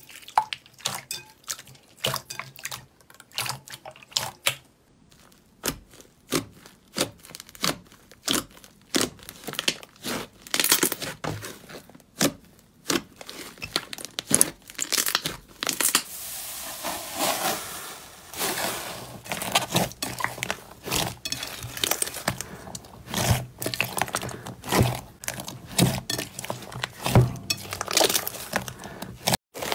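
Hands squeezing, kneading and stretching slime: a rapid, irregular string of sticky pops, clicks and crackles.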